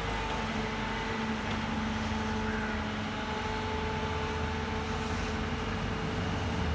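Heavy excavator's diesel engine and hydraulics running steadily, with a continuous whine held at a constant pitch over the low rumble.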